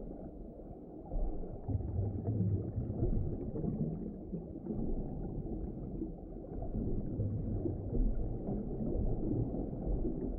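Muffled underwater-style water ambience: a continuous low rumble and gurgle with nothing above a dull, low range, gently swelling and ebbing.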